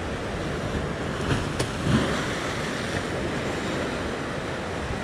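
Rough surf washing against the rocks, mixed with wind on the microphone: a steady rushing noise, with a short click a little over a second and a half in.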